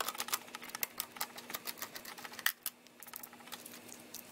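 Small precision screwdriver turning tiny screws out of the plastic base of a Sony Mavica MVC-FD83 camera: a run of fast, irregular light clicks, with a short lull about two and a half seconds in before more clicks as the camera is handled.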